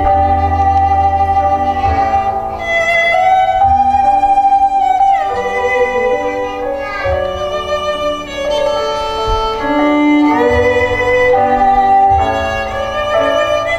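Instrumental music: a sustained melody line with sliding notes over a low accompaniment.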